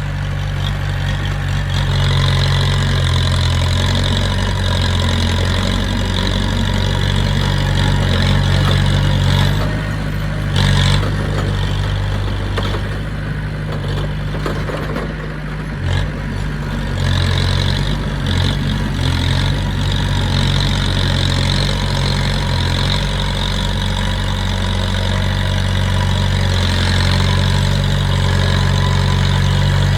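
Diesel engine of heavy earthmoving equipment running steadily, with a few short clanks and knocks near the middle.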